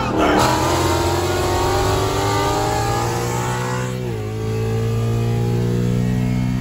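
Ford Mustang GT's 5.0 V8, with long-tube headers and a dumped exhaust, at full throttle, heard from inside the cabin. The revs climb steadily for about three and a half seconds, drop at a 10-speed automatic upshift about four seconds in, then climb again.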